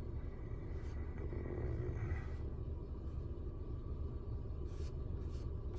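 Steady low rumble of a car cabin with the air conditioning running.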